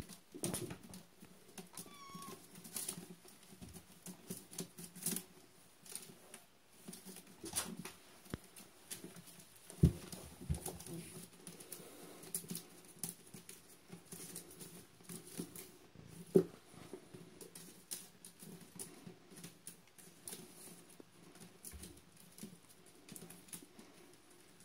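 Kittens playing in a wicker basket: scattered scratching, rustling and knocking of paws and claws on the wicker and patter on the tile floor, with the loudest knocks about ten seconds in and again about sixteen. A kitten gives a brief faint mew about two seconds in.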